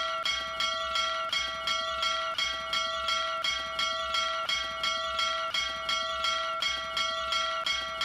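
Small hanging brass bell rung over and over by its clapper rope, struck about twice a second. Its ringing tones carry on between the strikes.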